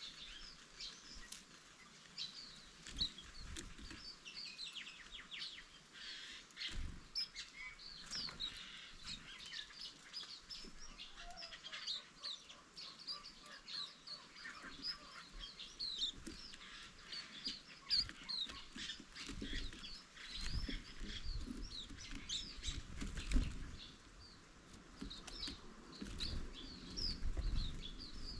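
A flock of green-backed white-eyes twittering: many short, high chirps overlapping without pause. Low rumbles and a few dull thumps come in during the second half.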